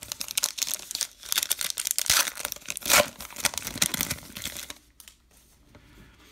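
Crinkling and tearing of a baseball card pack's wrapper as it is ripped open by hand, loudest about two and three seconds in, then dying away about a second and a half before the end.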